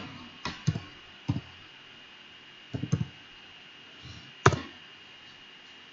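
Computer keyboard keys clicking a few times, unevenly spaced, as a command is typed. The loudest key press comes about four and a half seconds in.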